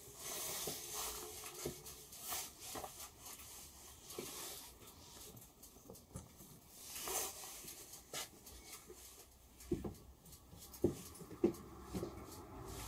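Fabric rustling of a riding jacket and small items of gear being handled, with several sharp knocks near the end.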